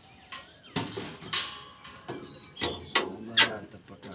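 Several sharp clicks and knocks from a JCB backhoe loader's engine bonnet as it is unlatched and lifted open by hand.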